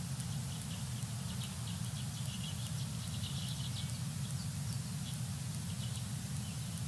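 Outdoor bird-cam ambience: a steady low rumble with many faint, quick, high-pitched bird chirps in loose clusters, busiest in the middle.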